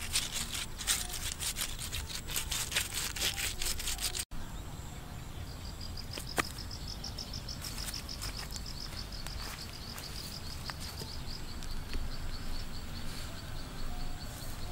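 Open-air rural ambience. For the first four seconds there is a dense crackling rustle. After a cut, a small creature's high, rapidly pulsing trill runs for several seconds, with a few sharp clicks.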